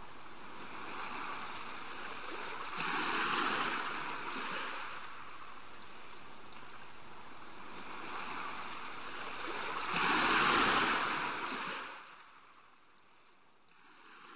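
Waves washing onto a sandy beach, a steady rush that swells twice, about three seconds in and again about ten seconds in, then cuts away to near silence near the end.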